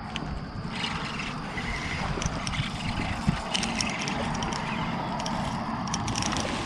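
Water gurgling and splashing against a kayak's hull as it moves, with a steady wash and small crackling drips.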